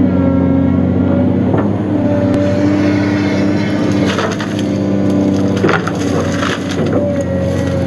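Cat 336D excavator's diesel engine and hydraulics running steadily under load as the bucket pushes into trees and brush. From about four seconds in, branches and trunks crack and splinter in several bursts.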